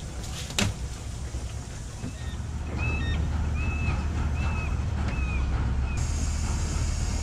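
A sharp knock about half a second in, then from about two and a half seconds a steady low drone of a dockside hoist as a blue fish tote is lowered onto the boat, with a run of about five short high squeaks.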